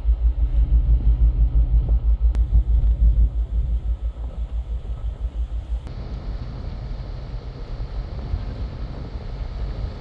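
Wind buffeting the microphone on the open deck of a container ship under way: a loud, uneven low rumble. About six seconds in it changes abruptly to a quieter, steadier rumble.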